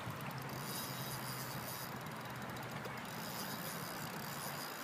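Spinning reel being cranked while fighting a hooked fish, giving short runs of fast, fine clicking near the start and again about two seconds in, over the steady rush of river water.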